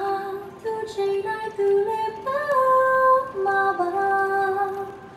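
Background music: a woman singing a slow melody in long held notes.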